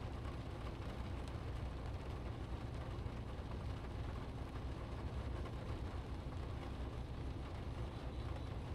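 Steady low rumble of a car's cabin in rainy traffic: engine and road noise, with the hiss of rain on the car.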